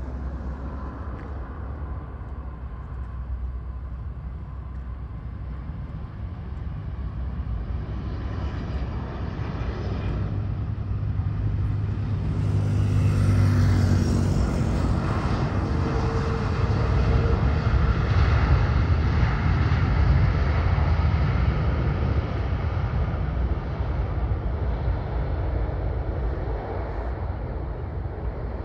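Airbus A330's twin Rolls-Royce Trent 700 jet engines as the airliner flares, touches down and rolls out close by. The noise builds to a peak about halfway, with a pitch that drops as the plane passes, swells again a few seconds later, then slowly fades.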